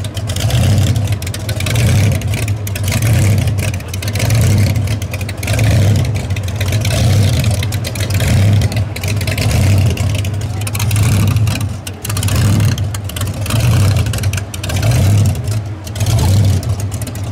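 Supercharged 331 cubic inch Hemi V8 with a Weiand 6-71 blower running at a lumpy idle, its loudness swelling and dipping about once a second.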